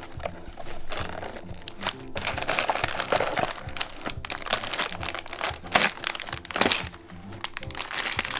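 LEGO set packaging crinkling and crackling as it is handled and opened, in irregular bursts over background music.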